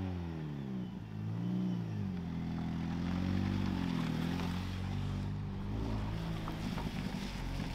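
First-generation BMW Mini's engine running as the car drives slowly across gravel, its pitch rising and falling with the throttle.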